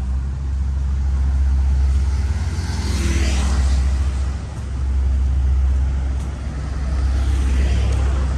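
Road traffic with vehicles passing by, one swelling up and fading about three seconds in and another near the end, over a constant low rumble.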